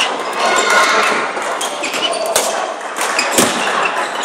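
Badminton rackets striking the shuttlecock during a doubles rally: several sharp hits a second or so apart, the clearest about two and a half and three and a half seconds in, over the steady background noise of a large sports hall.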